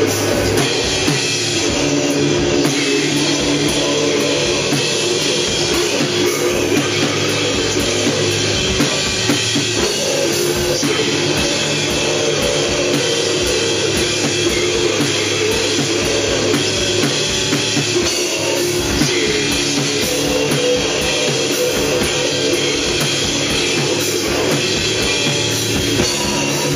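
Live rock band playing loudly: a drum kit and a guitar, with vocalists singing into microphones over them.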